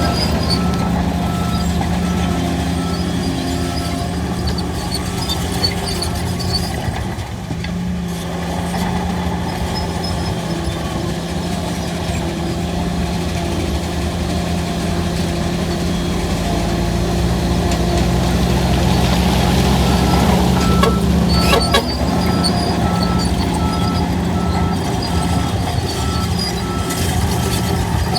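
Heavy earthmoving machine's diesel engine running under working load, swelling louder for a few seconds past the middle. A reversing alarm beeps steadily about twice a second during the first six seconds, then again from about two-thirds of the way in. A few sharp clicks come just after the engine swells.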